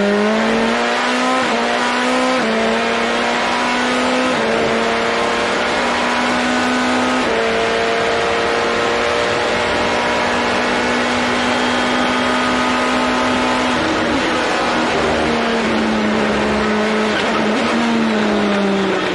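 Indy NXT car's turbocharged four-cylinder engine at racing speed, heard from the cockpit. It holds a high, steady note with abrupt steps in pitch at about 2, 4 and 7 seconds in as gears change, then falls back in steps from about 14 seconds in as the car slows and turns into a corner. A steady hiss of wind and road noise sits underneath.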